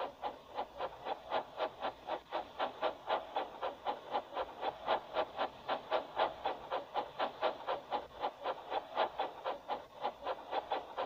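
Small steam tank engine chuffing at a steady running pace, about five puffs a second.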